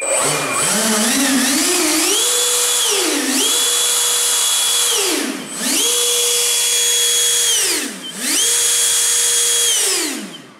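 The 90 mm electric ducted fan (seven-blade impeller) of a large RC MiG-15 jet model is throttled up to a high whine in steps and held at full power. It is throttled back briefly and run up again three times, then winds down near the end.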